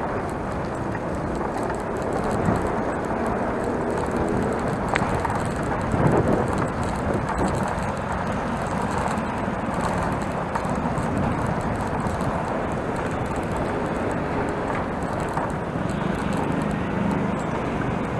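Wind buffeting a bicycle-mounted action camera's microphone while riding, over the rumble of bicycle tyres on brick paving and traffic on the road alongside.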